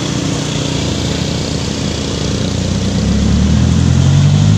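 A motor vehicle's engine running steadily, growing louder over the second half.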